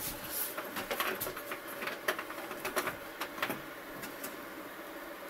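Handling of a large plastic canister: a quick string of small clicks and hollow plastic knocks as its screw cap is worked, dying away after about three and a half seconds.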